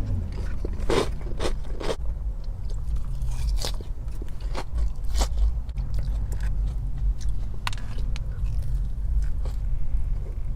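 Close-miked eating: a person biting and chewing food, with scattered sharp crunchy clicks, the loudest about a second in, over a steady low hum.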